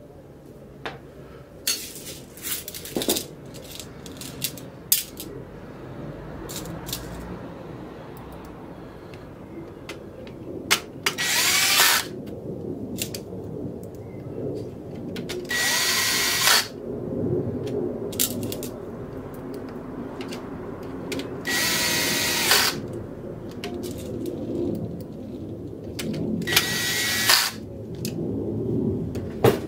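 Cordless drill-driver running in four short runs of about a second each, each with a steady motor whine, driving screws out of a copier fuser unit's frame. Sharp clicks of handling in the first few seconds.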